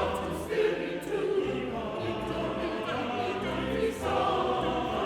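A choir singing, with sustained sung chords.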